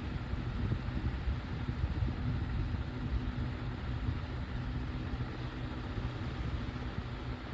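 12-inch Better Homes and Gardens metal oscillating table fan running on low: a steady motor hum and blade air noise with a low rumble. The fan is shaking hard because its blade is bent.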